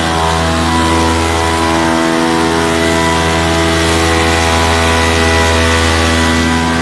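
Small engine of a backpack motorized sprayer running steadily at working speed while it blasts disinfectant mist.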